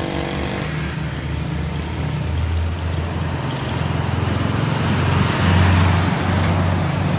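Road traffic passing close by: motorcycles and motorcycle tricycles running past, then a flatbed truck going by, loudest about five to six seconds in.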